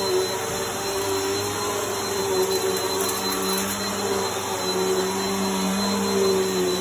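Bissell Helix vacuum cleaner running steadily, its motor hum and high whine wavering slightly in pitch as it moves. It is sucking up crunchy debris, with faint crackling about three seconds in.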